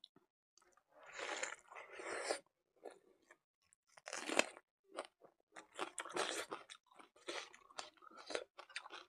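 A person chewing and crunching mouthfuls of buffalo innards curry with rice, in irregular bursts with short pauses between them.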